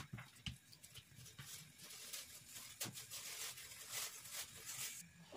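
Hands rounding balls of bread dough on a smooth work surface: a few soft pats, then a light scuffing rustle of dough and palms rubbing on the surface that stops shortly before the end.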